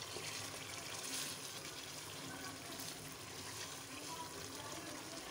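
Chicken karahi sizzling in oil in a wok as it is stirred with a wooden spatula: a faint, steady frying hiss from the bhuna stage, when the masala is fried down on medium heat until the oil separates.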